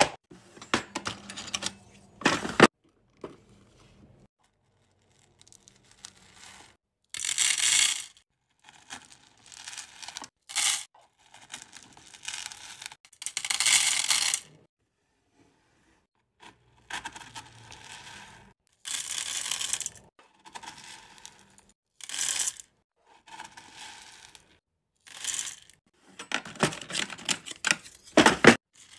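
Hard wax beads poured into the stainless-steel pot of a wax warmer, rattling against the metal in repeated pours of a second or two with short pauses between.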